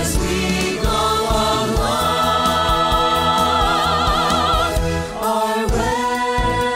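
A musical theatre company singing a show tune over a backing track with a steady beat. A long held note with vibrato runs from about two seconds in until nearly five seconds, then after a short break the voices come back in on a new sustained chord.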